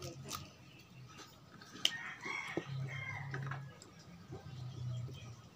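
A rooster crows once, starting about two seconds in and lasting around a second and a half, over soft sounds of chewing and handling food.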